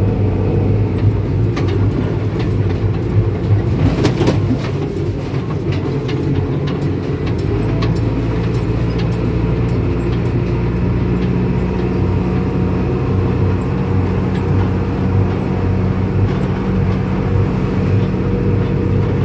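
Diesel engine of a yellow construction machine running steadily as it drives, heard from inside its cab. A steady low drone, with rattling clicks in the first few seconds.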